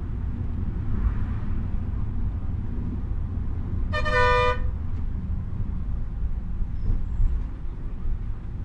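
Volvo B7R diesel coach heard from inside the cabin on the move: a steady low rumble of engine and road noise. About four seconds in, one short horn blast lasts about half a second.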